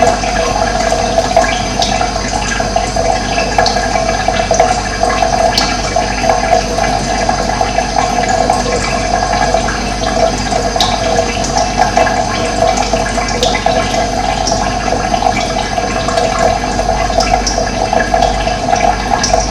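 Steady rushing of running water, with brief high bird chirps scattered over it.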